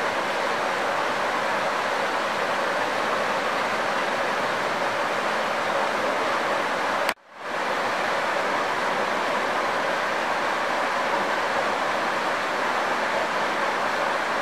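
Steady rush of flowing river water, an even hiss. About halfway through it cuts out suddenly for a moment, then fades back in.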